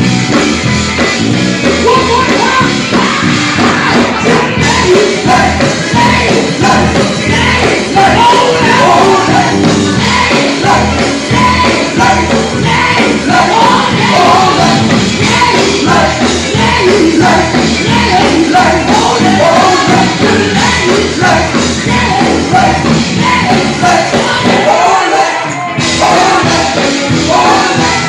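Gospel group singing with a live band of drums and guitar, vocals wavering over a loud, driving backing.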